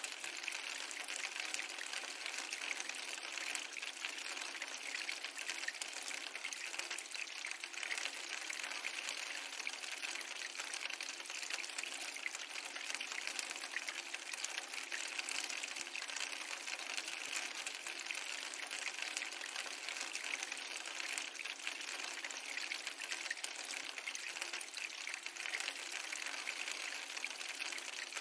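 Layered rain and fireplace ambience: a steady hiss of rain with dense, fine crackling throughout, even in level with no rise and fall of waves.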